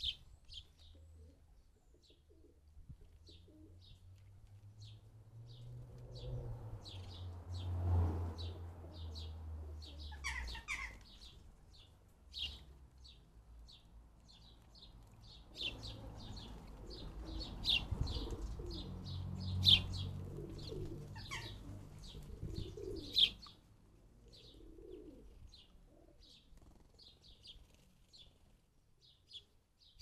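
House sparrows chirping over and over in short high calls, with a few sharp flutters of wings as they bathe. A low rumble swells and fades twice underneath.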